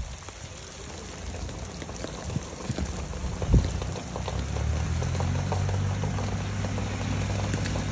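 Rustling and crackling with a single sharp knock a little before halfway, then a steady low motor hum that comes in about halfway and keeps running.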